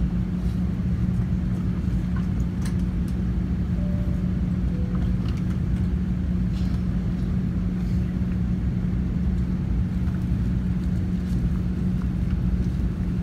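Steady cabin drone of an Airbus A380 airliner on the ground after landing, a low rumble with a constant hum and a few faint clicks and knocks.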